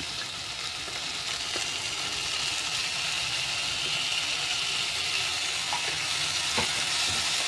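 Onions frying in oil in a nonstick pan, a steady sizzle that grows a little louder as chopped tomatoes are tipped in, with a few light knocks of a wooden spatula against the cup and pan.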